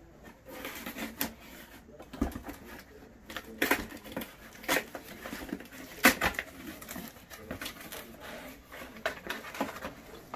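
Cardboard shipping box being opened: a large knife slitting the packing tape, then the tape and cardboard flaps torn and packing paper handled by hand, in an irregular run of scrapes, rips and sharp crackles.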